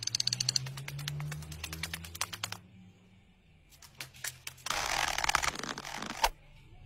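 Rapid dry clicking taps, a skittering sound effect for the animated long-legged spider's legs on a hard floor. After a short pause come a few more taps, then about a second and a half of scratchy hiss that ends in a sharp click.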